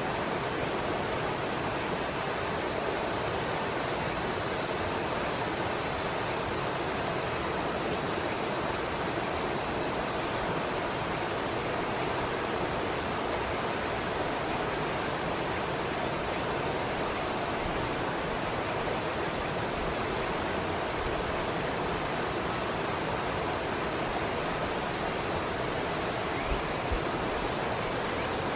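Steady chorus of summer insects, a continuous high buzz, over an even background rush.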